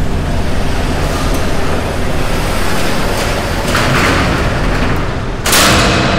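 A metal up-and-over garage door is pulled down and shut over a steady low rumble. It scrapes and rattles as it swings about 4 s in, then closes with a loud bang near the end.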